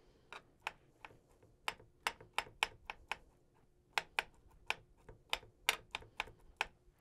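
A kitchen knife chopping soft avocado, its blade tapping sharply against a cutting board about two to three times a second, with a short pause midway.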